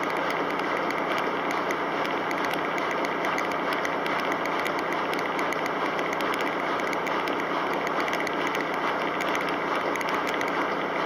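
Kelvinator K605 washing machine running steadily mid-cycle: an even mechanical noise of motor and drum, with a faint steady whine over it and no change through the stretch.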